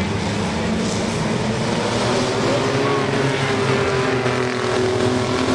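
Engines of a pack of racing pickup trucks, several engine notes droning steadily together under a wash of noise, one of them sliding slightly lower in pitch in the second half.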